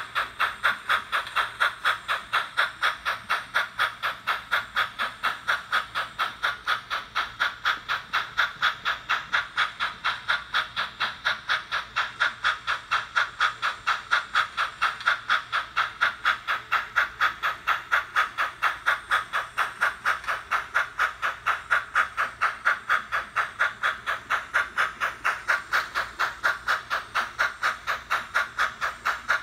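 Digital steam sound from the Soundtraxx Tsunami 2 decoder in an HO scale Norfolk and Western 2-8-0 Consolidation model, played through its small megabass speaker: a steady run of hissing exhaust chuffs, about three a second, as the locomotive pulls its train of hoppers.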